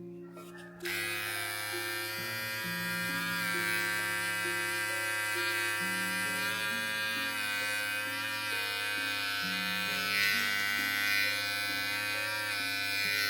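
Electric hair clippers buzzing steadily, switched on about a second in and running until near the end, with background music of plucked notes beneath.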